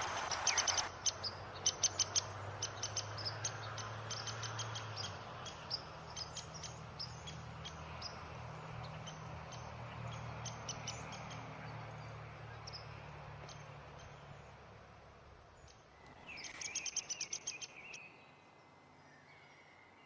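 Wild birds calling: a long run of rapid, high chips and twitters, then a short, dense burst of calls with a lower whistled note about sixteen seconds in. A low steady hum lies underneath for most of the first part.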